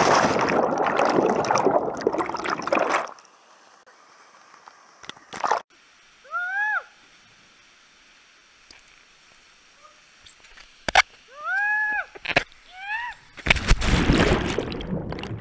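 Water rushing and splashing around a body-worn camera as a canyoner slides down a waterfall chute. The camera plunges into the water for about three seconds at the start and again near the end. In the quieter middle there are a few short rising-and-falling calls.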